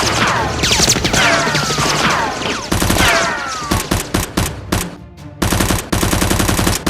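Rapid automatic gunfire sounds in fast bursts, with falling whistling tones in the first few seconds and a brief break about five seconds in.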